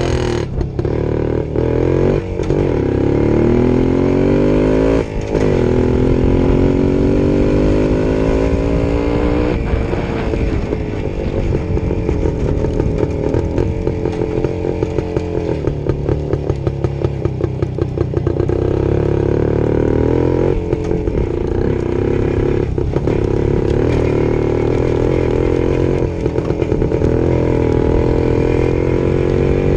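Jawa 250 two-stroke single-cylinder motorcycle engine under way, revving up and dropping back at each gear change several times in the first ten seconds, then running at steadier revs with small throttle changes.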